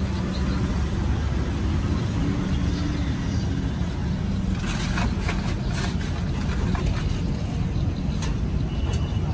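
Steady low rumble of road traffic. From about halfway through, a scatter of sharp clicks and clatters as ice is scooped from a plastic cooler.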